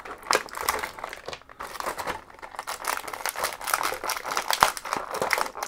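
Thin clear plastic blister tray crinkling and crackling irregularly as an action figure and its parts are pried out of it by hand.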